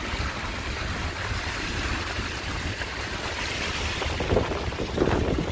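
Wind blowing across the microphone by the sea: a steady rushing noise with a low, buffeting rumble.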